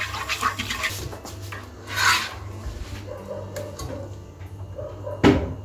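A whisk, then a spoon, scraping and stirring thick cendol batter of rice flour, tapioca and cornstarch against the inside of a cooking pot as the batter cooks and thickens. There is a louder scrape about two seconds in and a sharp, loud stroke near the end.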